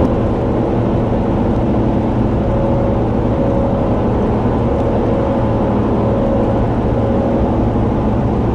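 Road noise and engine of a moving vehicle heard from inside the cabin: a steady rumble with a faint hum.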